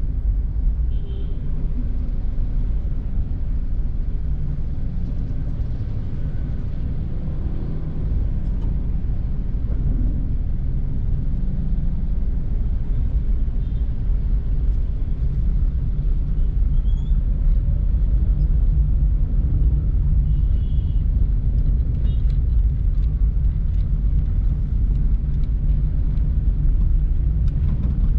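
Steady low rumble of a car driving through city streets: engine and road noise, with a few faint, brief high-pitched sounds.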